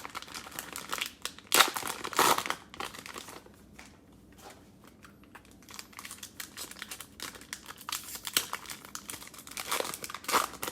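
Cellophane wrapper of a trading-card cello pack crinkling and tearing as it is opened by hand, with two louder crackles about one and a half and two seconds in, then quieter rustling.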